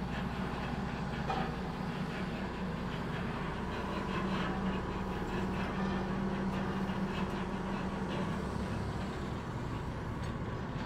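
Tugboat's diesel engine running steadily, a low even drone with a steady hum that grows a little stronger in the middle.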